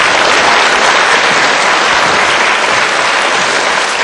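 Audience applauding in a theatre hall, a dense steady clapping from many hands.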